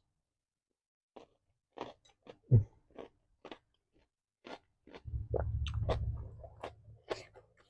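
Close-miked chewing of pempek, a chewy fish cake, with irregular wet mouth smacks and clicks. A louder knock comes about two and a half seconds in, and a low rumble runs under the chewing from about five to six and a half seconds.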